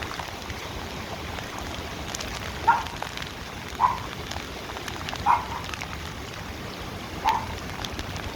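Steady hiss of rain, broken by four short, sharp calls spaced one to two seconds apart.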